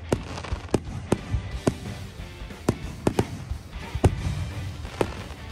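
Aerial fireworks bursting: a dozen or so sharp bangs at irregular intervals over a low rumble, the loudest about four seconds in, with music playing underneath.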